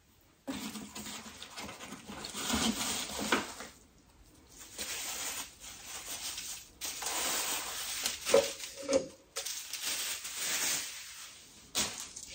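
Wrapping rustling and crinkling in hands, in stretches with short pauses, as a packaged wooden snowflake decoration is unwrapped.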